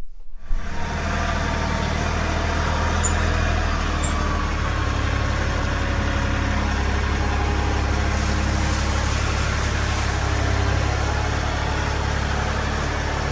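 Compact tractor engine running steadily as the tractor drives forward carrying a front-loader bucket heaped with wood chips.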